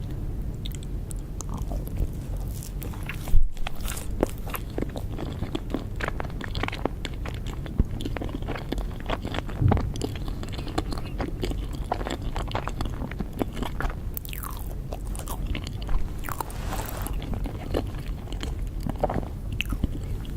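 Cake being bitten and chewed close to the microphone: a dense run of short, sharp mouth clicks and chews, the loudest about three seconds in.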